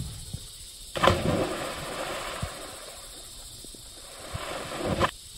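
Person jumping off a dock into lake water: a loud splash about a second in, then several seconds of rushing, churning water that cuts off abruptly near the end.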